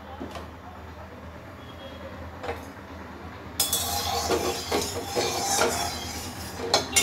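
A spatula scraping and clinking against an aluminium kadai as it stirs oil heating in the pan, starting about halfway through. Before that there is only a faint low hum.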